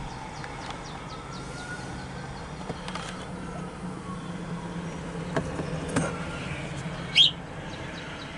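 Low, steady engine hum, with a short rising chirp about seven seconds in.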